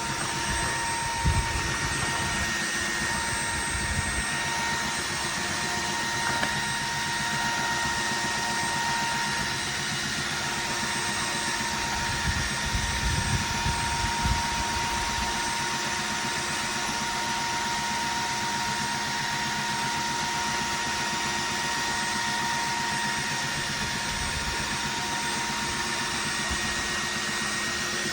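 Kenmore Intuition bagged upright vacuum cleaner running steadily, its motor giving a constant high whine over a rushing of air. There are a few low bumps near the start and about halfway through.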